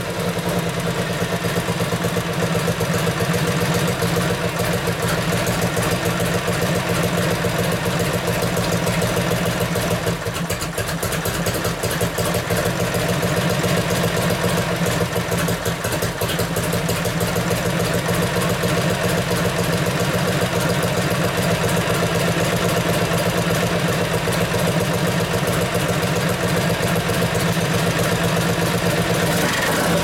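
1965 Harley-Davidson Panhead 74 ci V-twin idling steadily, its firing pulses even and unbroken.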